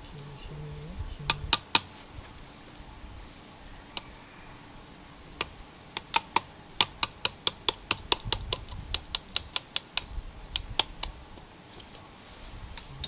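Light, sharp metallic clicks and taps from steel engine parts and a socket tool during the piston pin and cylinder block fitting on a Honda Dash engine. A couple come about a second and a half in, then a quick run of about four a second through the middle.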